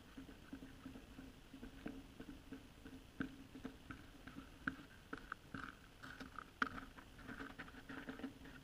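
Faint, irregular crunching and tapping of footsteps and shuffling on lake ice, with a few sharper knocks about three, five and six and a half seconds in.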